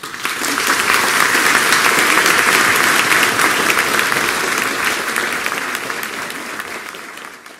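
Audience applause breaking out suddenly as an a cappella song ends, loud for a few seconds and then slowly dying away near the end.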